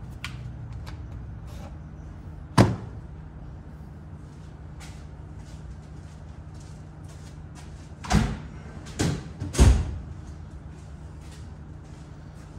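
Parts and tools being handled during wheel-hub bearing work: faint clicks and four sharp knocks, one about two and a half seconds in and three close together from about eight seconds in, over a steady low hum.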